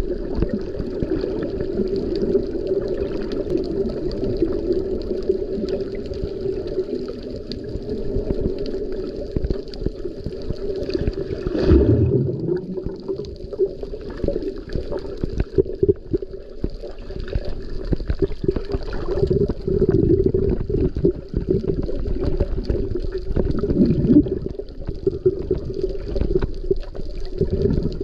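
Underwater water noise: a steady, muffled rush with crackling and bubbling, and a louder whoosh about twelve seconds in.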